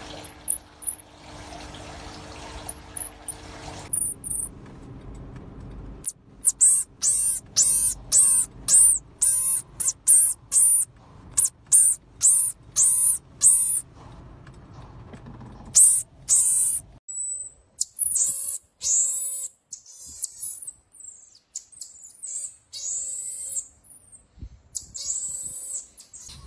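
Marmosets calling: very high-pitched chirps and trills, first in short bursts, then a run of about two wavering calls a second, then more spaced and varied calls.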